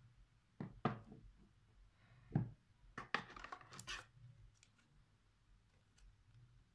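Unboxing handling sounds: a few sharp knocks as items are set down and handled on a wooden table, then about a second of paper and plastic rustling as the quick start guide and its wrapped pack are lifted out of the phone box.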